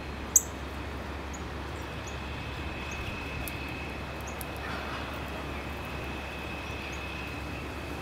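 Steady outdoor background hiss with a constant thin high tone, a sharp click about a third of a second in, and a few faint, very short high chirps of small birds scattered through.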